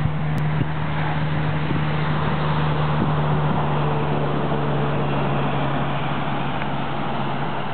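Steady rain falling, with a steady low engine hum underneath.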